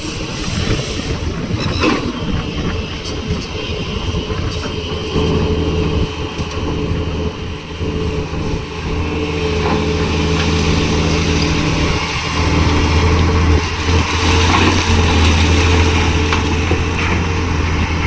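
Heavy diesel engine of earthmoving machinery running at a steady pitch. It grows louder about five seconds in and again near twelve seconds, with a few short knocks early on.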